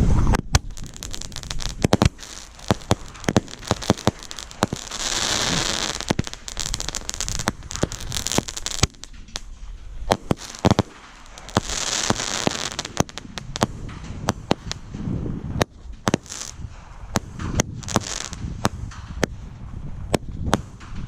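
Fireworks going off close at hand: a rapid, irregular run of sharp cracks and bangs, with stretches of dense crackling hiss swelling about five, twelve and eighteen seconds in.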